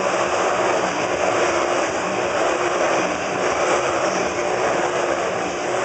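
Motorcycle engines running hard as the bikes circle inside a steel-mesh globe of death, a loud, steady, unbroken drone.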